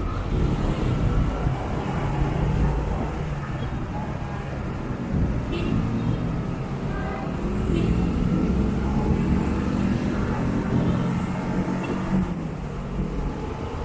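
Motorcycle engine running steadily under way, amid the noise of surrounding city road traffic.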